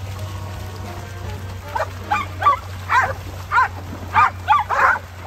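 A dog barking repeatedly, starting about two seconds in, at roughly two barks a second.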